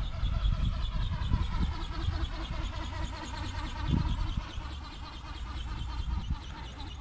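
Remote-control ornithopter's motor and flapping drive whining in flight, a thin whine that pulses about five times a second and shifts slightly in pitch, under low wind rumble on the microphone.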